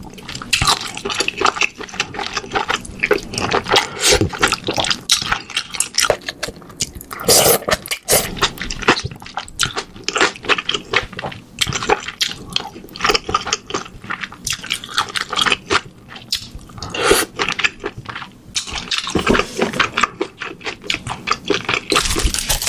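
Close-miked wet eating sounds: chewing, lip-smacking and slurping of spoonfuls of rice mixed into spicy stew broth, a quick run of small moist clicks.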